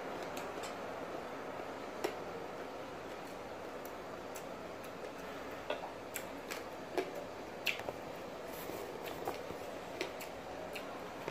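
Mouth sounds of chewing food: soft irregular clicks and smacks, a dozen or so, over a steady background hiss of room noise.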